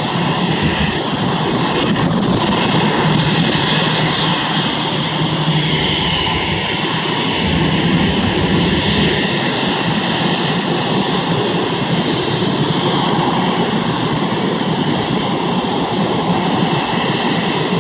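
Boeing 737-800's twin CFM56-7B turbofan jet engines running at taxi power as the airliner taxis close by: a steady, loud jet whine over a rumble.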